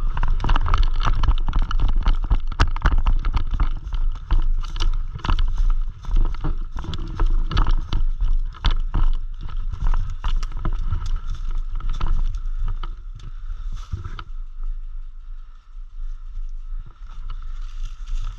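Running footsteps and gear knocking and rattling, in a quick irregular patter, over a steady low rumble of movement on the body-worn microphone. It eases off about fourteen seconds in.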